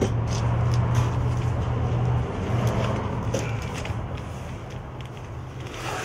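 Cardboard box flaps being opened and the box handled, giving scattered light clicks and rustles, with a louder scrape of cardboard near the end. A low steady hum underneath fades away over the first few seconds.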